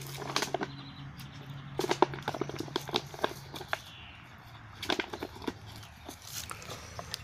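A dog chewing and pawing an empty plastic bottle: irregular crackles and crunches of the plastic, with a faint steady low hum underneath.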